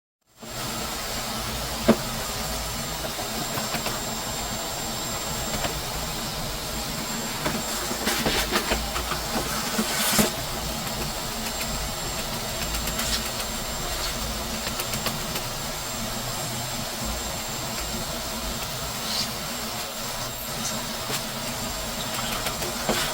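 A motor running steadily with a rushing, hissing air noise and a low rumble, with a few sharp clicks, the sharpest about two seconds in.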